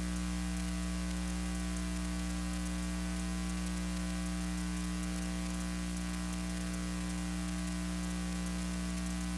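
Steady electrical mains hum under constant hiss, unchanging throughout. It is transfer noise on a silent film, with no sound from the aircraft.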